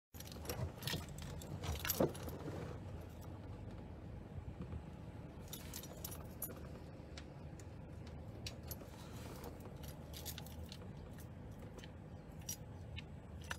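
Keys jangling, with small clicks and rattles, inside a parked car, densest in the first two seconds, then a few scattered faint clicks over a steady low rumble.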